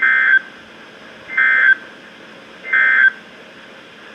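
NOAA Weather Radio SAME end-of-message code: three short, buzzy digital data bursts about a second and a half apart over faint radio hiss, marking the end of the severe thunderstorm warning.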